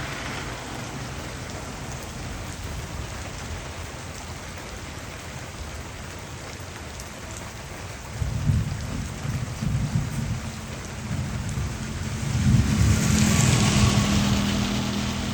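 Heavy rain falling steadily in a storm, with deep rumbles of thunder about eight seconds in and again, louder, near the end.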